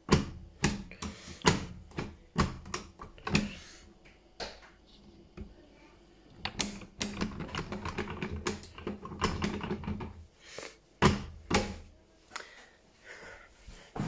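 Broken plastic door handle of a Hotpoint washing machine being pulled and let go again and again, giving a string of irregular plastic clicks and clacks.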